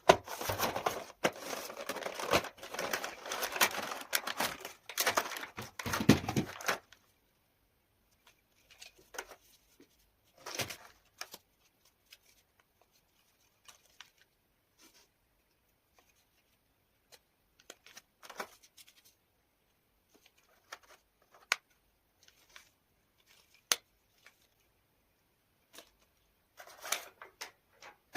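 Toy packaging being torn and crinkled open in a dense flurry for about the first seven seconds, then scattered light clicks and short rustles of handling, with a brief rustle again near the end.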